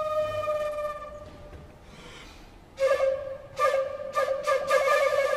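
Flute music: one long held note that fades away about a second in, a short pause, then the same note returning near the middle, stopping and starting again a few times.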